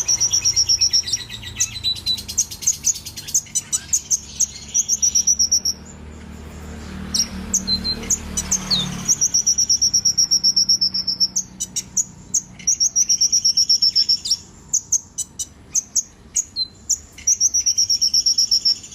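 Brown-throated sunbird (kolibri ninja) singing vigorously: rapid high-pitched chirps and repeated fast trilled phrases, with only short breaks.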